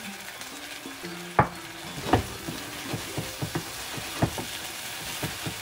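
Shrimp, mushrooms and cherry tomatoes sizzling in a frying pan over high heat as a wooden spatula stirs them, with irregular sharp knocks of the spatula against the pan, the loudest about a second and a half in.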